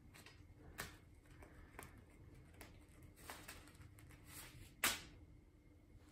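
A cat pawing at and dragging a plastic packet across a wooden tabletop: faint rustles and light taps, then one sharper tap about five seconds in as the packet comes down off the table.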